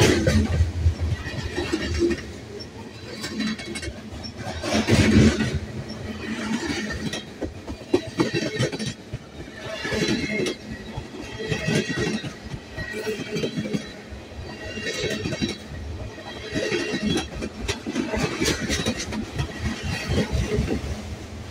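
Freight cars of a mixed train rolling past at close range: covered hoppers, tank cars and autoracks. The steel wheels clack and knock irregularly over the rail joints above a steady rumble, loudest about five seconds in.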